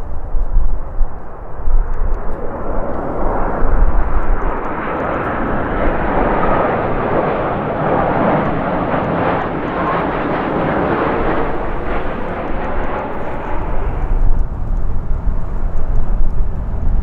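Jet airliner passing, its engine noise swelling to a peak mid-way and fading away. Wind gusts buffet the microphone at the start and end.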